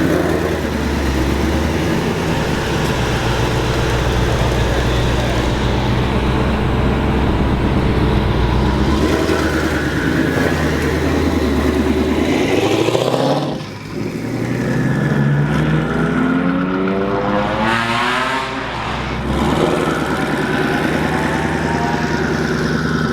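Twin-turbocharged Shelby GT500 V8 running through a Corsa Xtreme active cat-back exhaust with double H pipe, accelerating hard with the revs climbing again and again. The sound drops off briefly about halfway through and again near three quarters of the way, where the throttle is let off or a gear is changed.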